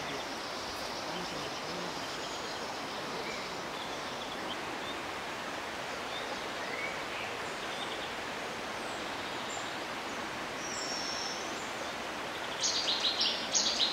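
Steady outdoor background hiss, likely foliage or flowing water, with a few faint bird chirps. Near the end a bird starts singing nearby in a rapid run of loud, high notes.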